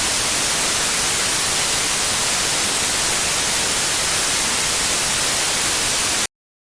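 Steady hissing static of a radio or TV with no signal, even white noise that stops abruptly near the end.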